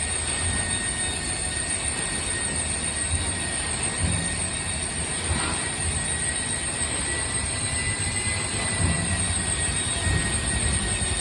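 Forging screw press running: a steady mechanical drone with a low rumble and faint high whine, no distinct strikes.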